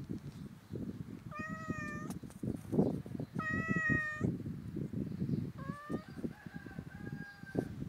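Grey tabby cat meowing three times, the third call fainter and longer than the first two, over low rustling and handling noise.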